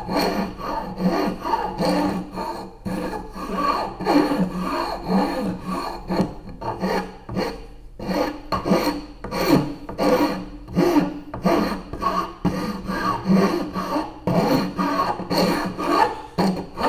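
Hand file rasping back and forth over the edge of a 1x4 pine cutout held in a vise, in steady repeated strokes, rounding over the sawn curved edges.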